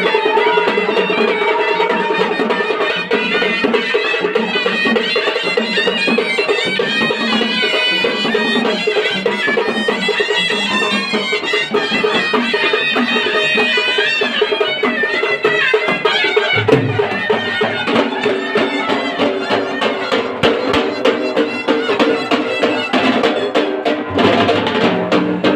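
Traditional dhol-tasha and vajantri band playing loudly: a wind instrument carries a wavering melody over fast dhol and tasha drumming. About 16 seconds in the melody drops out, leaving lower held tones over the drumming.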